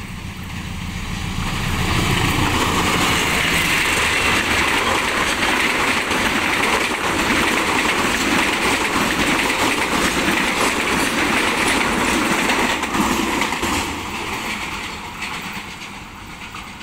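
Diesel-electric locomotive hauling a passenger train past at close range. Its engine rumble builds over the first couple of seconds, then the steady rush of the coaches' wheels on the rails holds loud. That wheel noise fades near the end as the train draws away.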